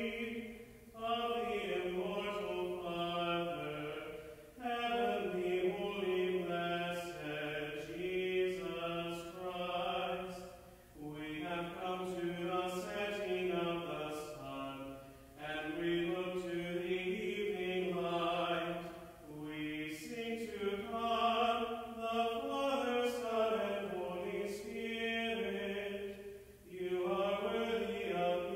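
A lone man's voice chanting the vespers liturgy unaccompanied, in sung phrases of several seconds each with short pauses for breath between them.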